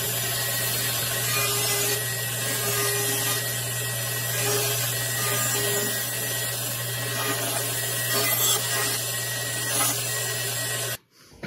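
Bandsaw running and cutting through a wooden board. A steady motor hum sits under the even hiss of the blade in the wood, and the sound cuts off abruptly near the end.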